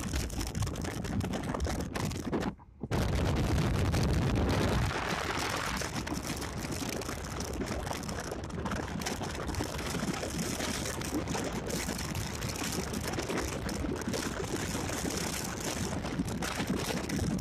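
Wind rushing and buffeting against the microphone at an open window of a moving car, over road noise. The sound cuts out for a split second about two and a half seconds in, then comes back with a heavier low rumble of buffeting for a couple of seconds before settling to a steady rush.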